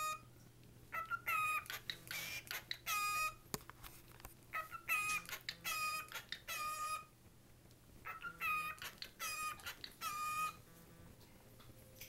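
Cockatiel whistling a short phrase of clear, level notes, repeated three times with short pauses between.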